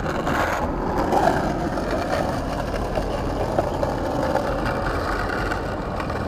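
Skateboard wheels rolling over stone paving, a steady rumble with a single sharper tick about halfway through.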